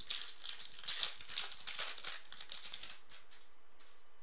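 Rustling and crinkling of trading cards and their foil pack wrapper being handled and flipped through, in quick uneven bursts that die away about three seconds in.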